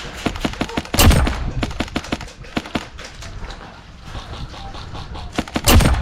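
Airsoft guns firing: a run of sharp clicks and pops, with two louder, heavier bursts, one about a second in and one near the end.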